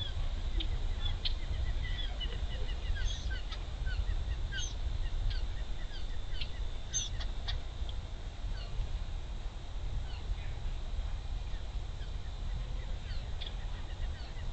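Birds chirping outdoors: many short high notes, some in quick descending runs, over a steady low rumble.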